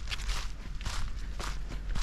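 Footsteps crunching through dry fallen leaves on a dirt trail, about two steps a second, over a low steady rumble.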